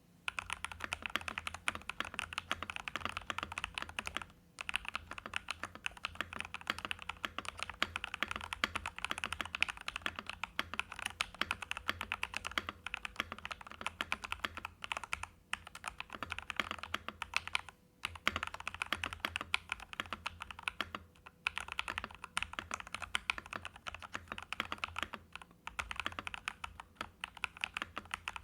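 Fast continuous typing on a VortexSeries GT-8 custom mechanical keyboard with lubed Jwick Black linear switches and PBT keycaps: a dense, even clatter of keystrokes, broken by a few short pauses.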